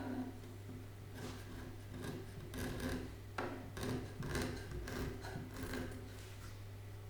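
Irregular strokes of a hand tool rubbing and scraping on a wooden cabinet, over a steady low hum.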